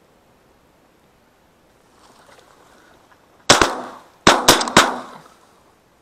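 Four shotgun shots fired at a flying duck: one crack, then three more in quick succession under a second later, each with a short echoing tail.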